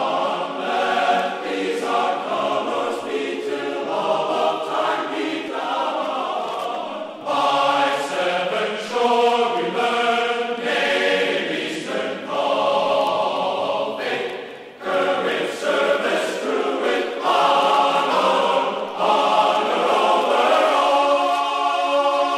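Background music: a choir singing held chords in phrases, with brief breaks between phrases.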